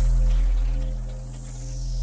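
Electronic music: a low synthesizer drone holding steady tones, with a high hiss that sweeps slowly down and back up, swelling and dipping in level about halfway through.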